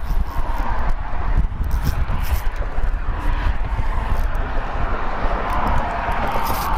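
Strong wind buffeting the microphone, a continuous fluttering rumble, with a faint steady whine underneath that grows slightly near the end.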